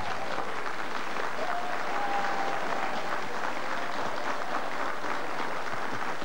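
Studio audience applauding steadily, a dense even clapping with no pause.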